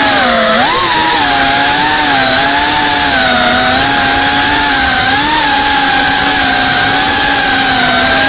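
Motors and ducted propellers of a GEPRC Cinelog 35 cinewhoop FPV drone, a loud steady whine heard from the onboard camera. The pitch shifts with the throttle, dipping and then rising sharply about half a second in and lifting briefly again around the middle.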